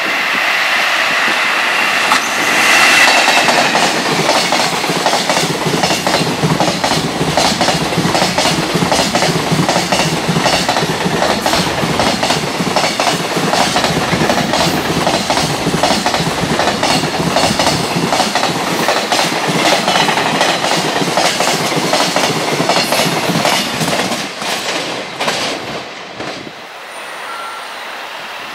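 Long container freight train hauled by an electric locomotive passing at speed, its wagon wheels clacking in a steady rhythm over the rail joints. The sound falls away near the end.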